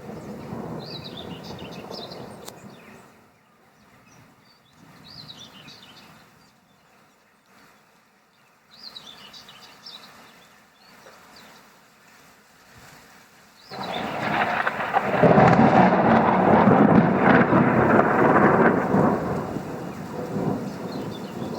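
Thunder rumbling low at first, then a loud thunderclap breaks about two-thirds of the way in and rolls on, rising and falling, to the end. Short bird chirps sound in the quieter stretch before it.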